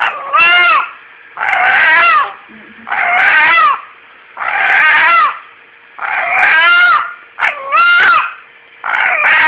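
A pet animal giving the same long, wavering wail-like call over and over, about eight times, roughly one every second and a quarter, each call bending up and then down in pitch.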